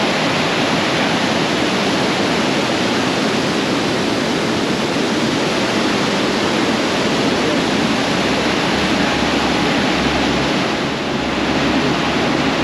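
Waterfall running: a loud, steady rush of falling water.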